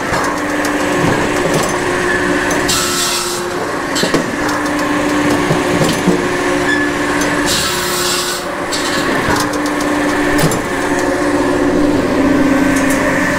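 Japa 700 firewood processor running with a steady drone while its 700 mm circular saw blade cuts through sycamore logs twice, each cut a harsh, high-pitched rasp lasting about a second, about three seconds in and again about eight seconds in.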